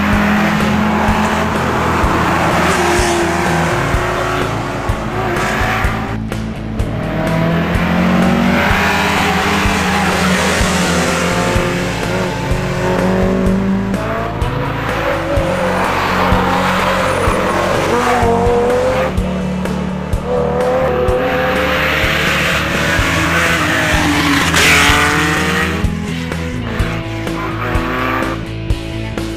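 Historic rally cars driven hard through a mountain-road bend one after another, engines revving up and falling away as they brake and accelerate, mixed with a background music track.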